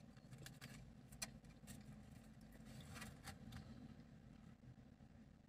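Near silence: a faint low hum under a few soft clicks and rustles of a takeout food container being handled, the sharpest a little over a second in.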